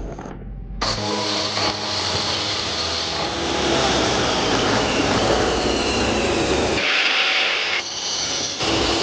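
An electric woodworking power tool starting up about a second in and running while working wood, with a steady motor whine under dense cutting noise that changes character near the end.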